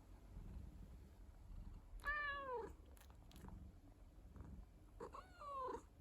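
Domestic cat meowing twice, about three seconds apart, each short call arching up and then falling in pitch, over a low continuous purr.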